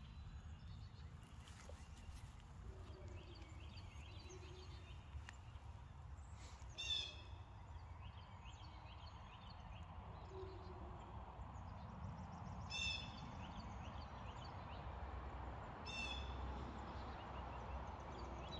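Quiet outdoor ambience with a steady low rumble and birds calling: faint small chirps throughout, and a louder harsh bird call three times, several seconds apart.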